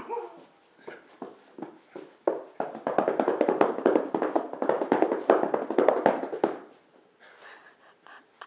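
Hands rapidly patting and scratching a carpeted floor. The run of quick, dense taps starts about two seconds in and lasts about four seconds, with a few scattered taps before and after.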